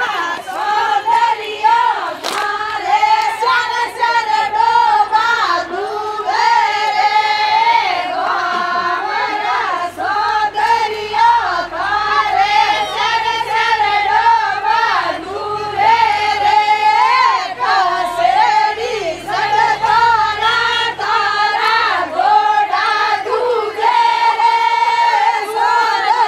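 A group of women singing a Marwari Fagan folk song together, voices in unison carrying a continuous melody in repeated phrases.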